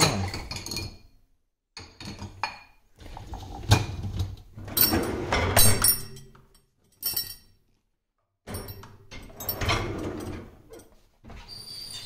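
Dishwasher wire racks rattling on their runners as they are pulled out and pushed back, with dishes, glass and cutlery clinking in them, in several separate bursts of knocking and clinking.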